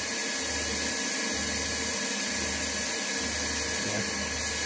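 Steady hiss and hum of a heat exchanger service module's hot-water circulating pump running, pushing water through the unit at about 3 litres per minute. Under it, a low hum switches on and off about once a second.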